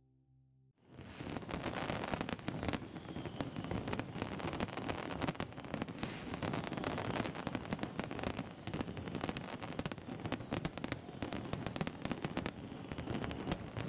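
An aerial fireworks display: a dense, unbroken barrage of bangs and crackles that starts about a second in.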